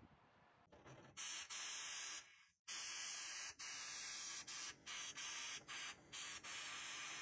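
Blast gun in an abrasive blast cabinet firing in a series of short bursts of loud hissing air and grit, the trigger squeezed and released about eight or nine times, cleaning a thin metal rod.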